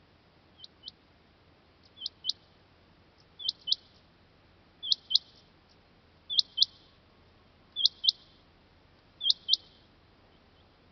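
Male rain quail calling: a sharp, high two-note call repeated about every second and a half, seven times, the first call faint and the rest louder.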